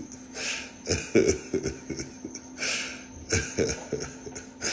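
A man laughing in short, breathy bursts.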